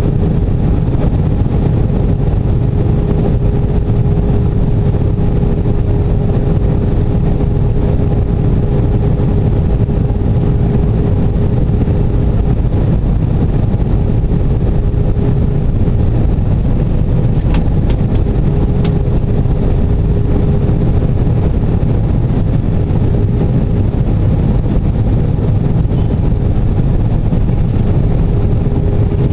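Steady cabin noise inside an Airbus A320 airliner in flight: a constant roar of engines and airflow with a steady hum running through it.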